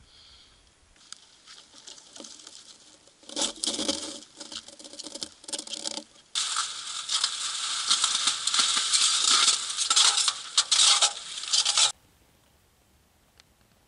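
Boots crunching in dry, frozen snow close by, in uneven steps from about three seconds in, then dense, continuous crunching and rustling. It stops abruptly near the end.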